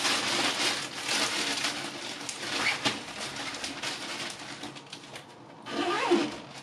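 A plastic bag crinkling and clothes rustling as they are packed and pressed down into a suitcase, with a brief pitched sound near the end.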